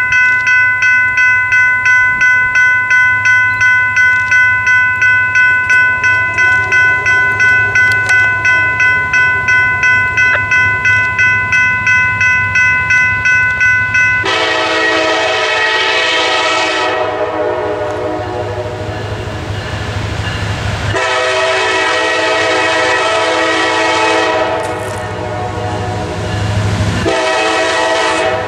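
General Signals Type 3 electronic crossing bells ringing in rapid, even strikes, about three a second, cutting off about halfway once the gates are down. A Norfolk Southern SD70ACC locomotive's air horn then sounds in long blasts, with two short breaks, as the freight train approaches, over a low diesel rumble.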